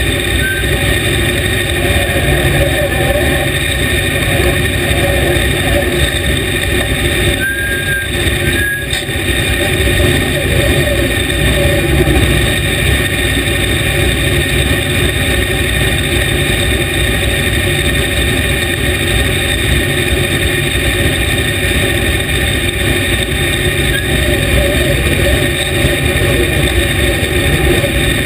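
Dirt late model race car's V8 engine running steadily at low revs, heard from inside the cockpit.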